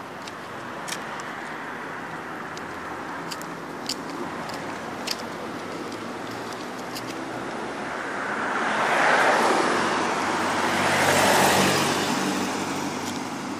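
Road traffic: a steady hiss of tyre and engine noise, with cars passing that swell twice, loudest about nine seconds in and again about eleven and a half seconds in, then fade.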